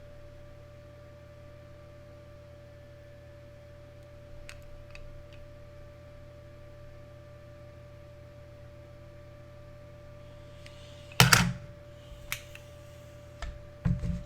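Steady low electrical hum, with a few faint clicks about four to five seconds in, then several loud short knocks and bumps of handling noise in the last few seconds, the first and loudest about eleven seconds in.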